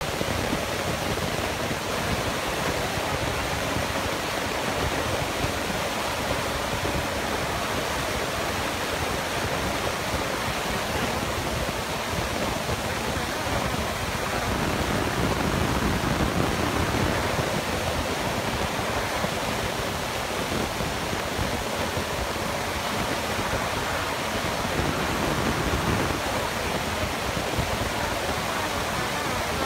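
Doosan excavator's diesel engine and hydraulics running with a steady, even noise while it works a hydraulic scrap shear over a pile of scrap metal. The noise swells a little around the middle and again near the end, and no distinct cutting or clanging impacts stand out.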